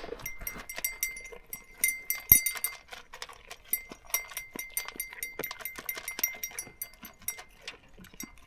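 Goats eating feed pellets from a metal pan: a steady run of sharp clicks and clinks as muzzles and horns knock against the metal, with a thin ringing note beneath them.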